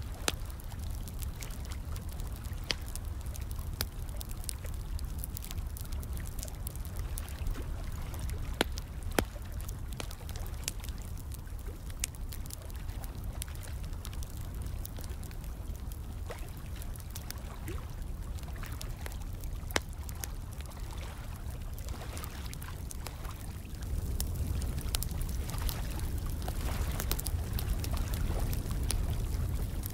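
Fire crackling, with sharp pops scattered through, over a steady sound of running, trickling water. The whole gets a little louder about three-quarters of the way through.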